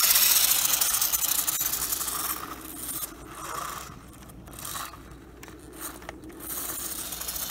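RC car's tyres spinning and scraping over icy, snow-covered pavement. The sound is loudest as the car pulls away close by, then fades over the next few seconds as it drives off.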